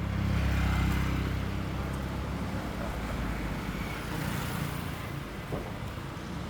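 Road vehicle noise: a steady low rumble of passing traffic, swelling about a second in.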